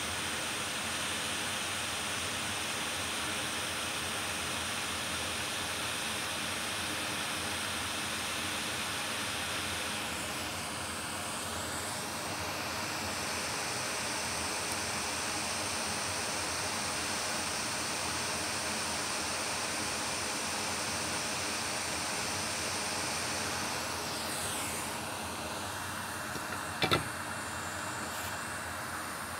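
Steady hiss of blowing air that changes tone twice, with one sharp click near the end.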